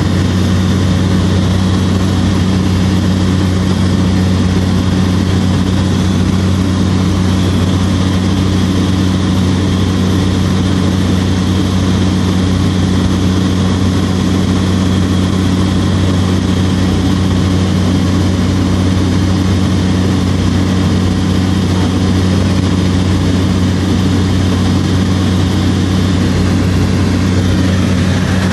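Inside the cabin of a small propeller plane in flight: the engine's steady drone, a constant low hum with an even rushing hiss of air over it.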